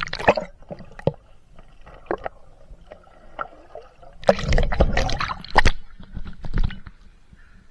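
Water gurgling and sloshing around an action camera in a waterproof housing held in the water, with scattered sharp clicks and a louder rush of water about halfway through.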